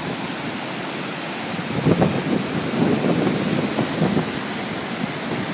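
Steady rushing roar of a waterfall's falling water, with wind buffeting the microphone in uneven low rumbling gusts from about two seconds in.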